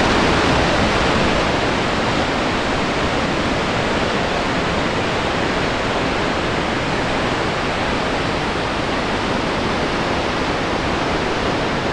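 Shoshone Falls, a large waterfall, with a steady, loud rush of falling water.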